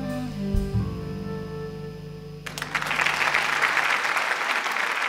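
A jazz septet of piano, guitar, double bass, clarinet, flute and drums ends a piece on a held final chord that cuts off sharply about halfway through. Applause breaks out at once and carries on.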